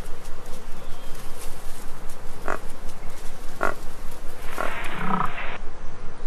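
Wild boar grunting: two short grunts about a second apart, then a longer grunt about a second later, over a steady background with an even pulse.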